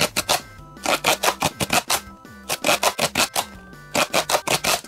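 Candy-toy packaging being opened by hand: four bursts of rapid, crisp crackling, each lasting under a second, over light background music.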